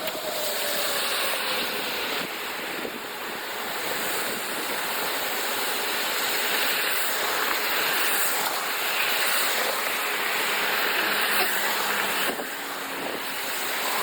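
Steady rushing noise of strong storm wind, with a brief dip about twelve seconds in.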